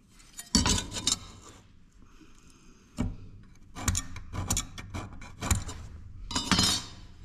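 Metal speed square clinking and knocking against a steel bar and the workbench several times, with a steel scribe scraping along the square as a line is marked, the longest scrape near the end.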